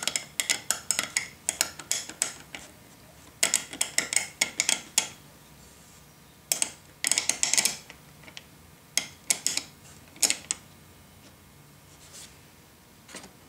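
Small metal parts of a Stanley No. 9 1/2 block plane clicking and clinking as the angle adjuster lever is fitted and worked into place on the plane body. The clicks come in short runs separated by pauses.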